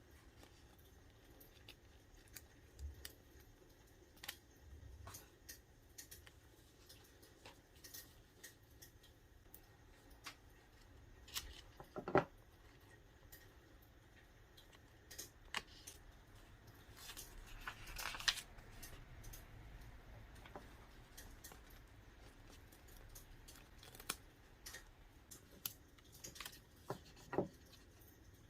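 Quiet stationery work sounds of sticker-decorating a paper notebook: sheets handled and cut, with scattered small clicks and taps. The loudest tap comes about twelve seconds in, and there is a short stretch of paper rustling around eighteen seconds.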